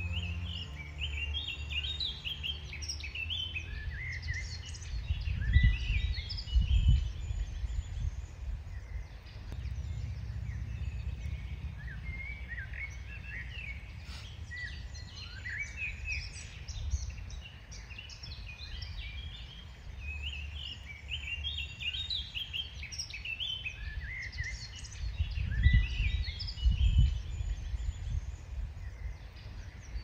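Several songbirds chirping and singing in woodland, with short repeated phrases throughout. Under them a low rumble that swells twice.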